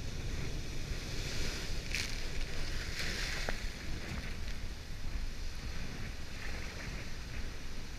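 Ocean waves crashing on rocky shore and whitewater surging through the rock pools, with a swell of spray hiss about two to three seconds in. Wind buffets the microphone with a steady low rumble.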